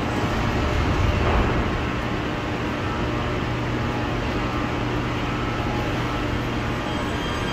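Steady hum of a metro train standing at an underground platform, its equipment running, with a brief swell in level about a second in.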